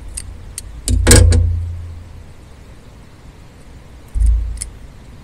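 Scissors snipping through the strands of a jig skirt: a few sharp snips in the first second and a half, the loudest about a second in with a dull thump, then another thump and snip around four seconds.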